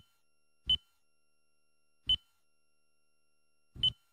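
Four short electronic button-press beeps, unevenly spaced, each a brief high tone, as the on-screen treble and bass plus buttons of a Toyota navigation touchscreen are pressed.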